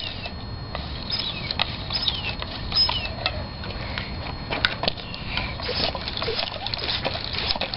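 Bicycle tire being inflated with a hand-worked tire pump: irregular clicks and short squeaks from the pump.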